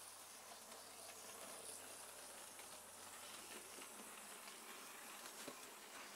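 Faint, steady whirr of a Bachmann LNER Robinson O4 model locomotive's small electric motor and wheels running along the track, smooth and without grinding.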